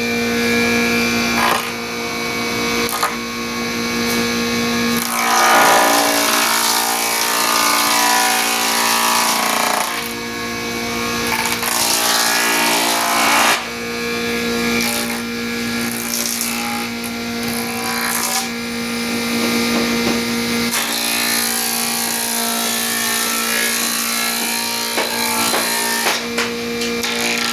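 Electric wood planer running, its motor humming steadily while the cutter hiss swells and eases as it shaves the timber.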